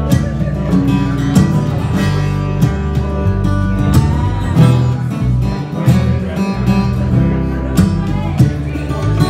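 Acoustic guitar strummed in a steady rhythm of chords, played live.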